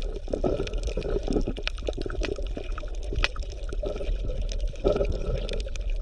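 Underwater ambience: bubbling, gurgling water with many small clicks and crackles running throughout.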